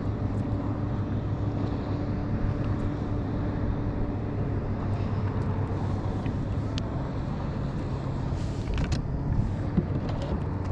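Steady low motor hum. Several light clicks come through the middle, and a brief clatter and a sharp tick come near the end.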